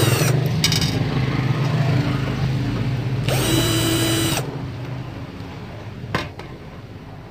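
Cordless drill-driver whirring in short bursts on the screws of a metal equipment case: a brief burst under a second in and a longer one about three and a half seconds in, over a steady low hum that fades after about four and a half seconds. A few light clicks near the end.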